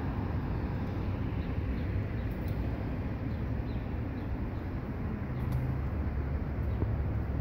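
City street ambience: a steady rumble of road traffic, heaviest in the low end.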